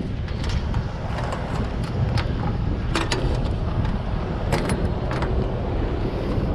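Diesel semi-truck engine idling steadily, with scattered sharp metallic clinks and rattles from securement gear being handled, clustered about three seconds in and again around four and a half to five seconds.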